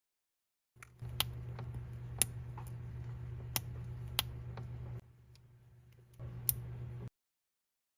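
A handful of sharp, small plastic clicks and taps over a steady low hum: minifigure pieces being handled and pressed together.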